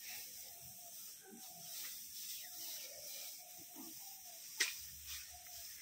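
Dry paddy straw rustling as two bullocks trample it for threshing and a man turns it with a wooden stick. There is one sharp knock about four and a half seconds in.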